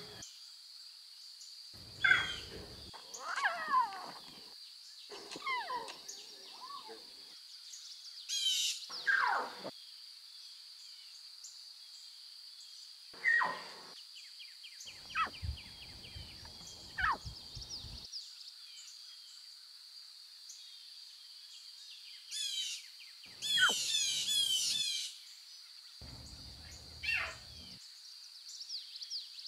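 Lion cubs mewing: short squeaky calls that fall in pitch, scattered through, over a steady high-pitched insect drone. Bursts of rapid high bird chirping come about a third of the way in and again near the end.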